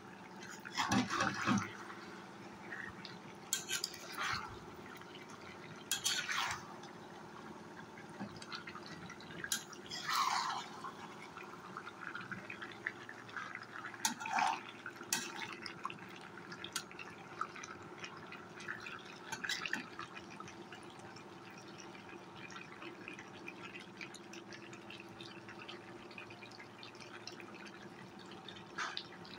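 Thick beef and potato curry cooking down in a pan, giving a short wet plop every few seconds as bubbles burst in the sauce, over a faint steady hum.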